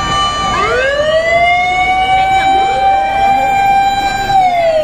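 Fire truck siren winding up, holding one high steady note for about three seconds, then winding down near the end, with fainter siren wails underneath.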